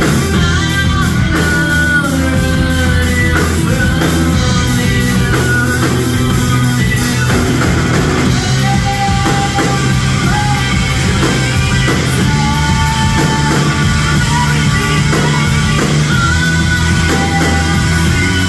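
Rock band playing loud and without a break, with sustained electric guitar lines over a heavy bass and drum low end, during a sound check.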